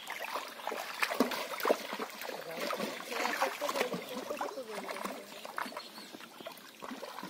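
Pond water splashing and sloshing in irregular bursts as men wade and work a fishing net in shallow muddy water, with voices talking and calling over it.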